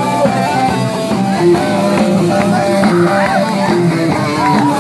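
Loud music with a guitar-led tune, held notes moving in steps over a steady low line.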